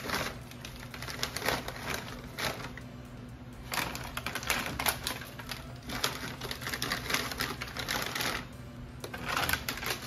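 Frozen meat packages knocking together and plastic bags rustling as they are moved around inside a chest freezer: runs of quick, hard clicks and clatters, easing off for about a second and a half near three seconds in and again briefly near the end.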